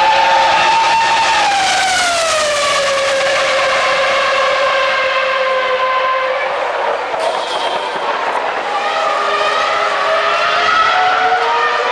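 Ferrari Formula 1 car engine running at high revs: a high, shrill note that falls in pitch as the car goes past about two seconds in, then rises again toward the end.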